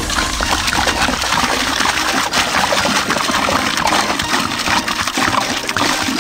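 A thick stream of soda pours from a large plastic jug into a barrel of baking soda and Mentos, splashing and gushing steadily onto the foaming mixture.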